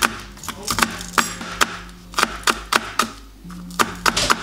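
Chef's knife chopping spring onions on a plastic cutting board: quick sharp strikes of the blade against the board at about three a second, with a short pause about three seconds in. Background music plays underneath.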